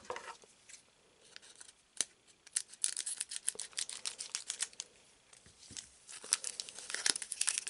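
Scissors cutting open a foil trading-card booster pack: a sharp snip about two seconds in, then runs of crisp crackling ticks from the foil wrapper as it is cut and handled.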